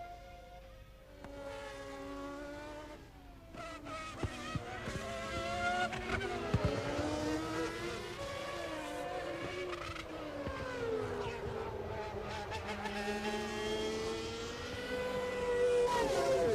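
Several 1995 Formula One cars' engines running at high revs together, their pitches climbing and dropping as they accelerate and change gear, with a few sharp cracks between about four and seven seconds in.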